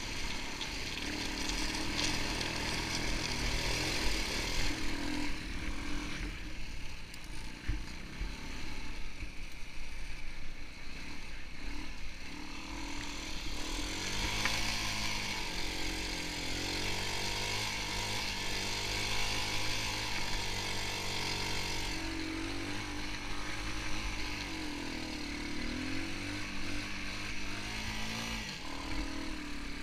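Sport ATV engine running under load, its pitch rising and falling again and again as the throttle is worked, heard from the rider's helmet.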